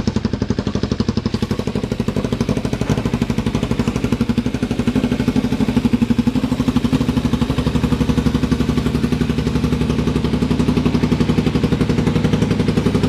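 Kawasaki Ninja 300's parallel-twin engine idling steadily, heard up close with a fast, even pulse.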